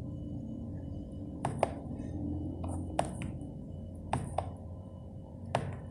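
Landline phone's keypad buttons being pressed: a handful of short, sharp clicks at irregular intervals while navigating the menu, over a steady low hum.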